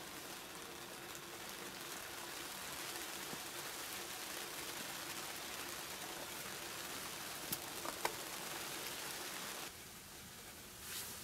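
A steady hiss with no pitch to it, broken by two sharp clicks about half a second apart past the middle; it drops away suddenly near the end.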